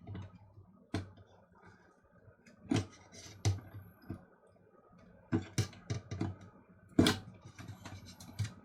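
Sharp plastic clicks and knocks of a small coffee grinder's housing and switch board being handled and worked loose. The clicks come singly, then in a quick cluster, with the loudest knock near the end.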